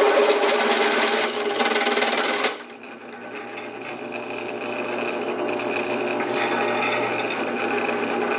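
A drill press drives a carbide bit through a cast metal muller plow with a loud, steady cutting sound. About two and a half seconds in, the cutting stops suddenly and the machine runs on more quietly with its spindle turning free.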